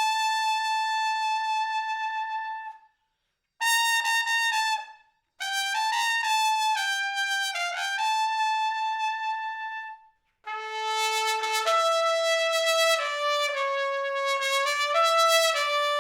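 Unaccompanied solo trumpet playing a slow melody in phrases of held notes, with short silent pauses between phrases. The sound is dry, with no added reverb or effects.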